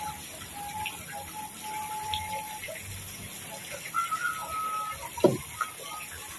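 Steady hiss of a pond fountain's spray falling on the water, with a few faint held whistle-like tones. About five seconds in comes a short sound that slides sharply down in pitch.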